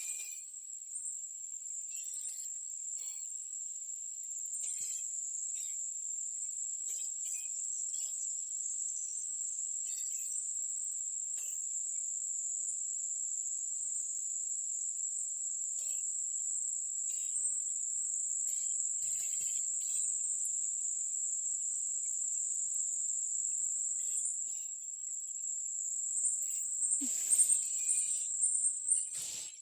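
Insects in the forest droning in one steady, unbroken high-pitched tone, with faint scattered ticks, and a louder rustle of movement near the end.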